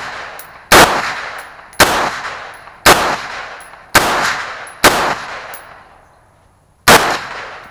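AR-15 rifle in .223/5.56mm firing six single shots, roughly one a second, with a pause of about two seconds before the last. Each very loud crack is followed by an echo that dies away over about a second.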